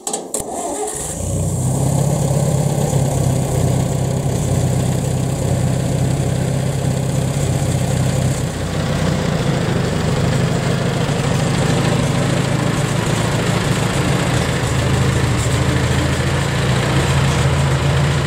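1966 International Harvester 404 tractor's four-cylinder engine idling steadily, coming in over the first second or two.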